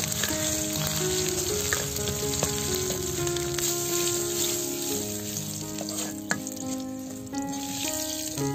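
Whole spices, bay leaves and cumin seeds, sizzling in hot oil in an iron karahi while a metal ladle stirs them, with a couple of sharp clinks of the ladle against the pan. Background music with held notes plays along.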